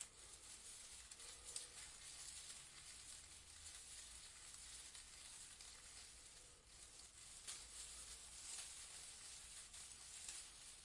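Faint rustling of leaves in a breeze: a soft, crackly hiss that swells slightly now and then.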